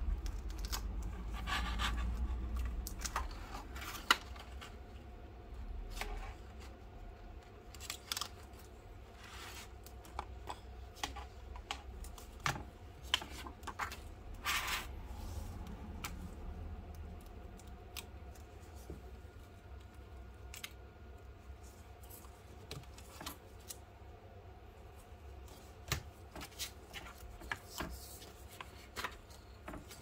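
Plastic opening picks scraping and clicking as they are worked round the edge of a tablet's glued screen, then scattered small clicks and taps as the loosened display panel is handled.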